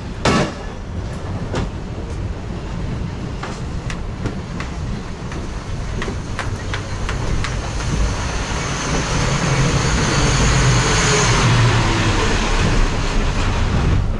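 A train running by, growing louder from about halfway through and peaking near the end with a low rumble and a high hiss, over a steady background of street noise and scattered clicks. A sharp knock sounds just after the start.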